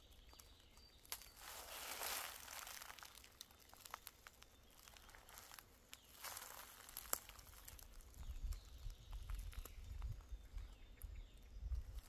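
Soft rustling on a forest walk, swelling a couple of times, with scattered small crackles and clicks, and a low rumble over the last few seconds.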